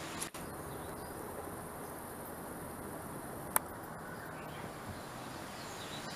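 Steady outdoor background hiss, strongest in the highest pitches, with one sharp click about three and a half seconds in.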